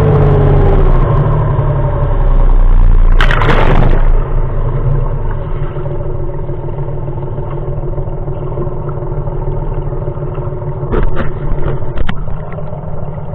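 Boat's outboard motor coming off the throttle, its pitch falling in the first second, then running slower and quieter with water churning close by. A loud rush of splashing comes about three to four seconds in, and a few knocks come near the end.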